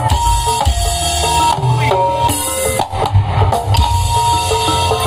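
Live jaranan music from a gamelan-style ensemble with electone keyboard, played loud through a PA system. Busy hand-drum strokes run under held melody notes that step from pitch to pitch.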